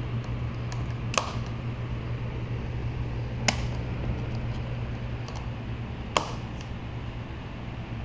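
Britânia electric fan running, with a steady motor hum and airflow noise. Three sharp clicks come as its motor housing is handled: about a second in, about three and a half seconds in, and about six seconds in.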